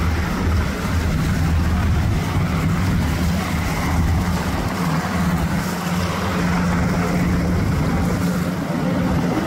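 H-60 Black Hawk-type military helicopter flying low and close overhead: a loud, steady, deep drone of its rotors and turbine engines.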